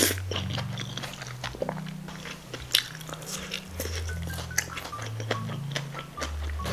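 Close-up eating sounds of malatang noodles being chewed, with wet mouth noises and many short clicks of spoon and chopsticks, over background music with a steady bass line.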